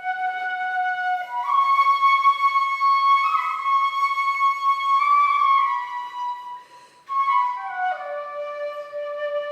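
Shinobue, the Japanese bamboo transverse flute, playing a slow solo melody of long held notes with small bends between pitches. The sound breaks briefly about seven seconds in, then picks up and settles on a lower held note.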